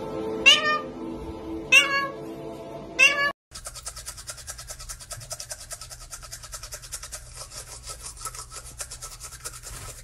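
A parrot gives three short meow-like calls, each falling in pitch, about a second apart. A toothbrush then scrubs rapidly and evenly on teeth for the rest of the time.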